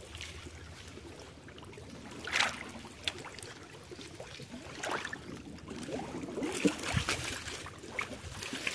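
Someone wading in shallow water among dry reeds and grass: scattered soft splashes and rustling of grass stems. Near the end a hand pushes into the grass covering a fish trap in the water.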